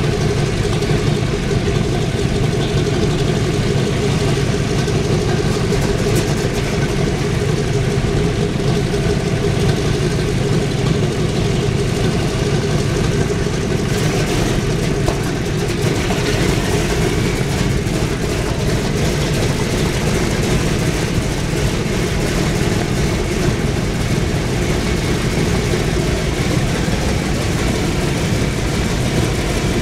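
B-17 bomber's Wright R-1820 Cyclone nine-cylinder radial engines idling steadily, with three of the four engines running.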